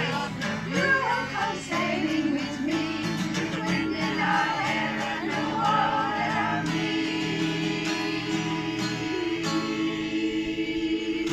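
Music: a song sung by several voices with accompaniment, settling into a long held final chord from about two-thirds of the way through.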